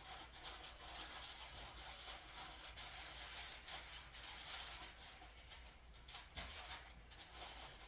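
Faint sizzling and crackling of food frying on a skillet, over a steady low hum.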